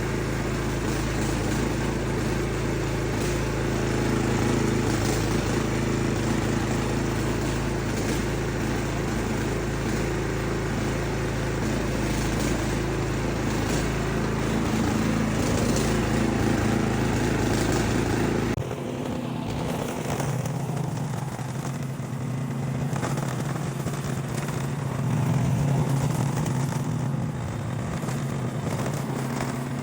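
Snow blower's small gasoline engine running steadily, now that its dirty carburetor has been cleaned. About two-thirds of the way through, the deep low rumble cuts out abruptly and the engine note changes, rising briefly near the end.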